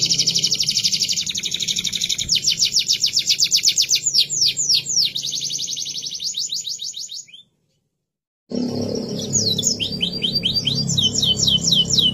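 Domestic canary singing: long rolling trills of fast repeated high notes, switching from one note type to another. A little past the middle the song breaks off for about a second of dead silence, then trills again.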